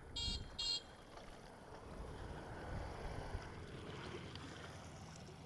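Wind rumbling on the microphone, with two short high-pitched squeaks close together near the start.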